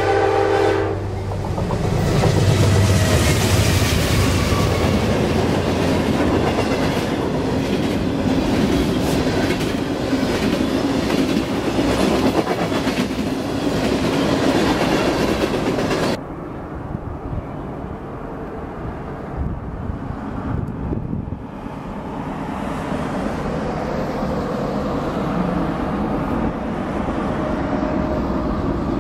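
A CSX freight train's diesel locomotive horn cuts off about a second in, then the train passes close at speed, its locomotives and freight cars running by with rhythmic clickety-clack of wheels on the rail. About halfway through the sound cuts abruptly to a quieter, steady rumble.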